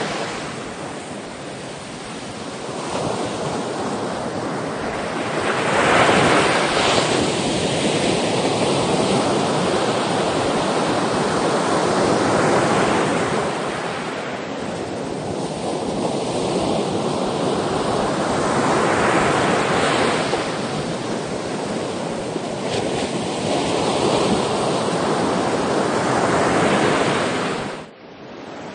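Sea waves breaking and washing in, swelling and easing every several seconds. The sound drops off suddenly near the end.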